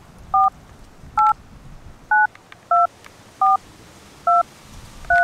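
Seven short two-tone keypad beeps, about one every 0.8 seconds, as a number is dialed on an old grey flip-style cell phone; the pitch pair changes with each key pressed.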